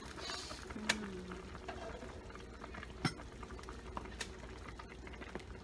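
Pot of chicken soup with green papaya and ginger simmering, bubbling steadily, with a few sharp pops or clicks about a second in and again around three and four seconds in.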